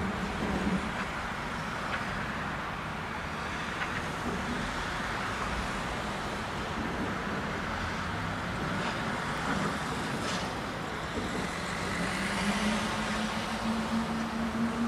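Steady distant rumble of freight-yard and road traffic. A low droning hum fades out about a second in and comes back, rising slightly, in the last few seconds.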